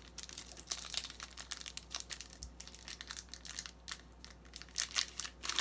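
Foil Pokémon trading-card booster pack wrapper crinkling and tearing as it is opened by hand: irregular crackles, loudest about five seconds in.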